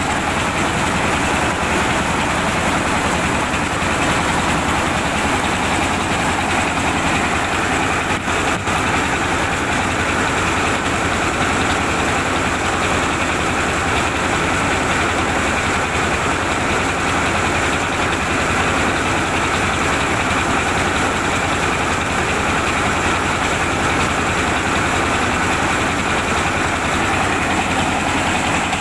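Engine-driven mobile rice mill running steadily under load while milling rice: a constant engine rumble under a dense, even whirring of the milling machinery.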